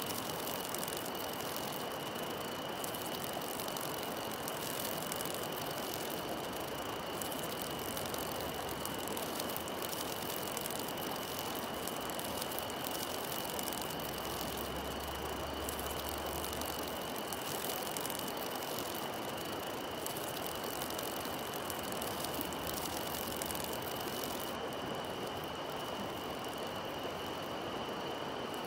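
A steady hiss with a constant high-pitched whine, unchanging throughout; no distinct sound from the cats or the bug stands out.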